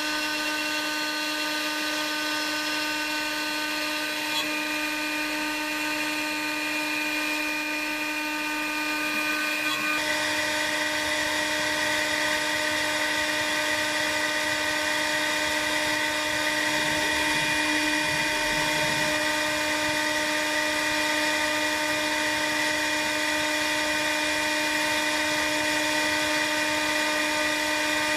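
CNC router spindle running with a steady high-pitched whine as it mills a laminated wooden blank with a 6 mm radius cutter. About ten seconds in, the sound gets a little louder and rougher.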